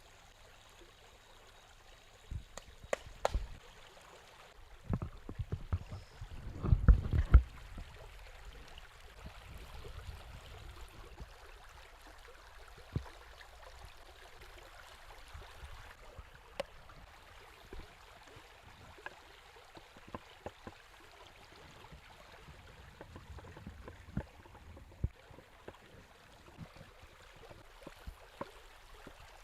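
River water running steadily, with scattered knocks and clicks of close handling and a cluster of louder low thumps about five to seven seconds in.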